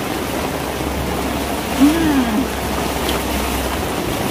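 Heavy rain pouring steadily on a tiled rooftop, an even hiss of falling water, with a short rising-and-falling tone about two seconds in.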